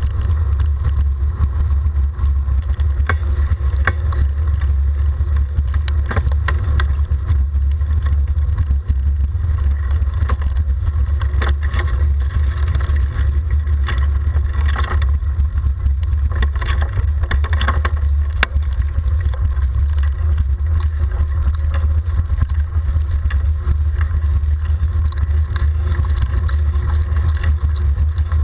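Steady low rumble of wind buffeting and road noise on a camera riding a vehicle downhill, with scattered clicks and rattles from bumps in the road surface, busiest in the middle stretch.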